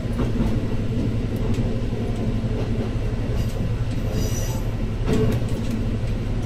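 Diesel railcar running along the track, with a steady low engine and running drone and a few clicks from the wheels over rail joints. About four seconds in comes a brief high wheel squeal.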